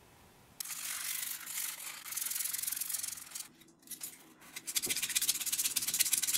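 Sanding dried drywall joint compound: a scratchy rubbing that breaks off briefly about three and a half seconds in, then resumes as quick, even strokes.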